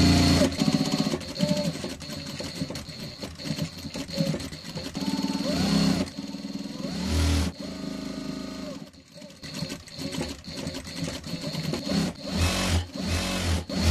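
Electric sewing machine stitching a seam, running in several bursts as the fabric is fed through: near the start, briefly about seven seconds in, and again near the end.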